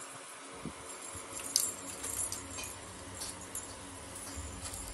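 Cats playing with a wand toy: scattered light clicks and jingles, the sharpest about one and a half seconds in.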